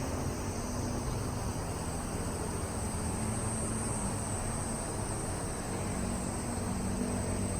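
Cicadas calling in a steady, continuous high-pitched chorus, over a low steady hum.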